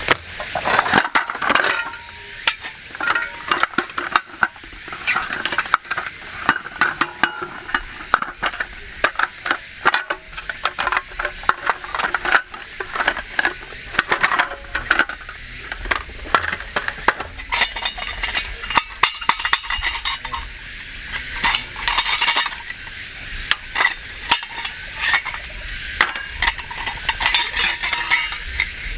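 Repeated clattering and clicking of a folding metal camp table as its slats and legs are unfolded and locked out, metal knocking on metal. Near the end, stainless steel stove parts clink together as a wood-gas stove is handled.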